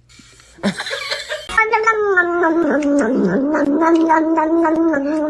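A cat yowling in one long, drawn-out cry that starts about a second and a half in, its pitch dipping briefly and then holding steady. A short rustling burst comes just before it.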